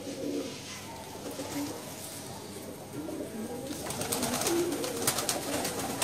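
A flock of red domestic pigeons cooing, short low coos repeating and overlapping. From about four seconds in, louder scuffling with sharp clicks joins in.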